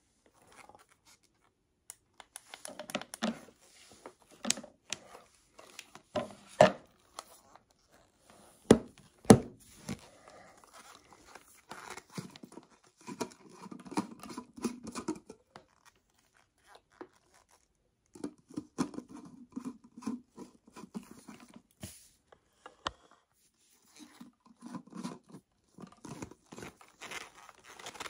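Handling noise from a portable juicer blender's plastic bottle, knocked, clicked and scraped close to the microphone in irregular bursts, with two sharp knocks standing out. The blender's motor is not running.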